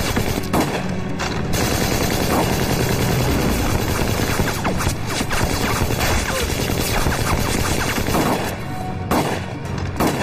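Film battle soundtrack: dense, rapid gunfire from rifles, many shots overlapping in volleys, over background music.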